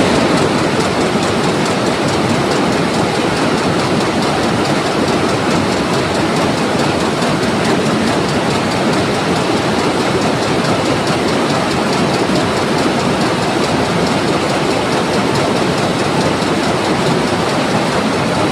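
Saree factory textile machines running: a loud, steady mechanical clatter with a fast, even rhythm.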